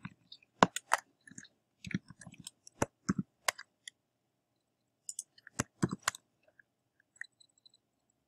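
Typing on a computer keyboard: scattered, irregular key clicks, with a pause of about a second midway.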